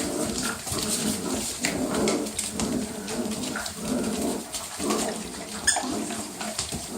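Six-week-old puppies whimpering and yipping, many short, overlapping calls, with brief clicks and scuffles among them.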